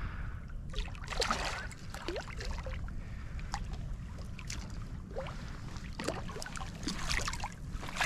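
A hooked fish splashing and thrashing at the water's surface beside an inflatable boat, in a string of short, irregular splashes.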